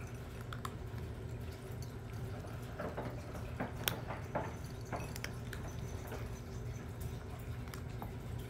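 Bengal cats crunching dry kibble from their bowls: scattered small clicks and crunches, thickest about three to five seconds in, over a steady low hum.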